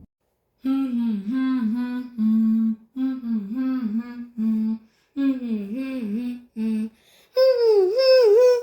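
A person humming a short wordless jingle in several brief phrases, each with a dipping wobble in pitch, jumping up to a higher register near the end.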